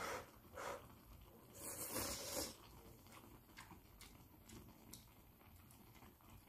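A few short rustling, hissing noises in the first two and a half seconds, the loudest about two seconds in, then faint scattered clicks of metal chopsticks stirring ramen in a pot.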